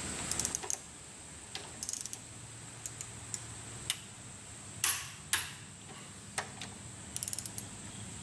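Ratchet of a long torque wrench clicking in short quick runs, with a few sharper single clicks, as the cylinder head bolts of a Cummins 8.3 L diesel are pulled down in the first stage of the stepped torque sequence.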